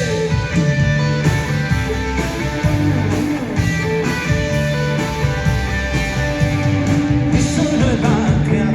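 Worship band playing an instrumental passage between sung lines: guitars over bass and drums, at a steady beat.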